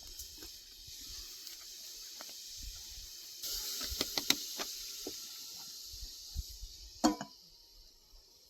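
Wood campfire under a cooking pot, hissing steadily with a few sharp crackles. The hiss swells and the crackles cluster around the middle, and one louder crack comes near the end.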